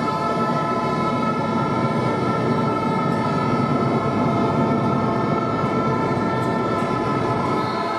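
Crowd din in a sports hall during a handball match, with several steady tones held over it throughout.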